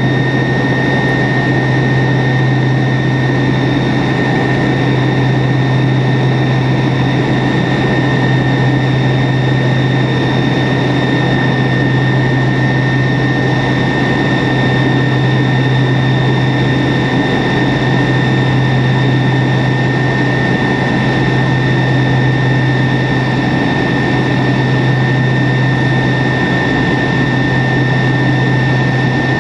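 Cabin noise aboard a Tupolev Tu-134B-3 in flight, from its twin rear-mounted Soloviev D-30 turbofans: a steady low drone and rushing air noise, with a constant high whine over it.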